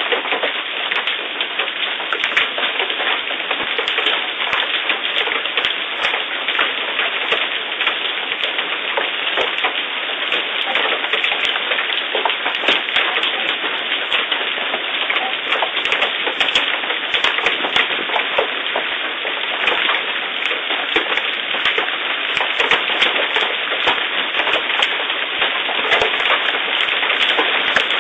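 Large hail pelting down with rain: a dense, continuous clatter of countless hailstone impacts.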